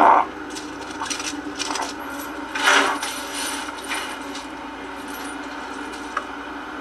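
Scattered light clinks, scrapes and rustles of a hand rummaging through debris and leaves on the floor, with one louder rattle about two and a half seconds in, over a steady low hum.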